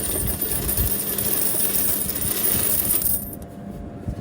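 Loose coins clattering and pouring out of a vending machine's coin mechanism during a collection. The clatter stops about three seconds in.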